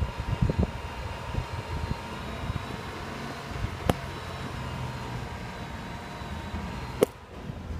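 A 2000 Toyota 4Runner driving in low-range four-wheel drive through heavy snow, its engine running steadily. Irregular low thumps come from the vehicle jolting over the rough trail, with a sharp knock about four seconds in and another near the end.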